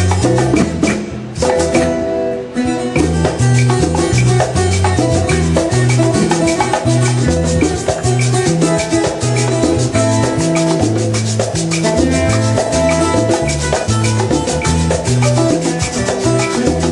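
Live Latin band playing salsa, with a steady repeating bass line under drums and percussion. The higher instruments thin out briefly about a second in, then the full band carries on.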